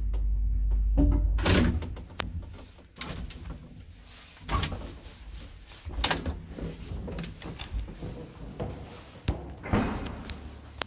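A 1930s Wertheim single-speed passenger lift's motor hums, then stops with a clunk about a second and a half in as the car comes to rest. After that, a run of separate clicks and clunks follows as the lift's doors and latches are worked.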